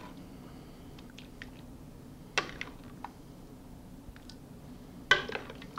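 A metal serving spoon clinking twice against the cookware as stew is spooned from a stainless steel saucepan into a bowl, each clink ringing briefly, with faint small taps and scrapes between.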